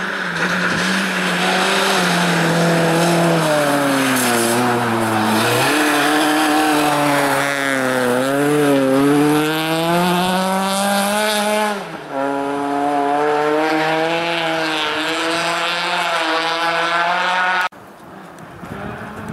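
Citroën C2 rally car's engine revving hard as the car passes at speed. The pitch drops about four seconds in, dips and climbs again around the pass, and breaks briefly at a gear change about twelve seconds in. The sound cuts off abruptly near the end.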